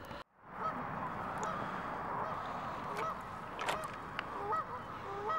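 Geese honking in many short, repeated calls over a steady hiss, with a couple of sharp clicks about three seconds in and again shortly after.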